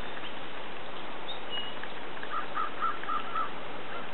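A bird calling: a quick run of about five short, evenly spaced notes a little past halfway, over a steady background hiss.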